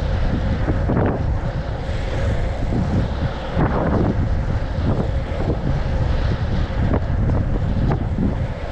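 Steady wind buffeting the microphone at skating speed, over the rolling of inline skate wheels on asphalt, with an occasional short stroke about every one to two seconds.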